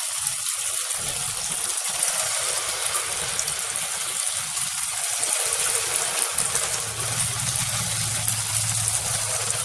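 Rice and urad dal batter balls deep-frying in hot oil in a kadai: a steady, dense sizzle of bubbling oil as the balls puff up.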